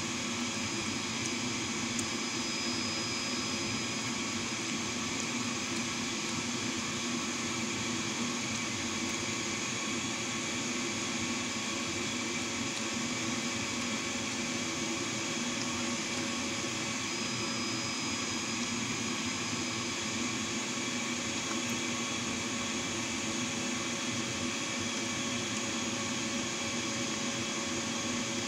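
Steady, unchanging machine hum and hiss, made of several held tones.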